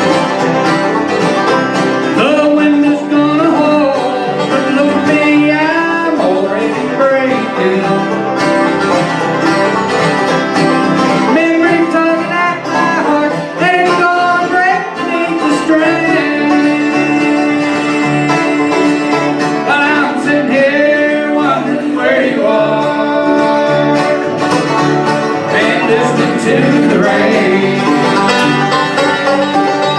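Live acoustic bluegrass band playing: five-string banjo, mandolin, acoustic guitars and upright bass, with a sung vocal over the picking.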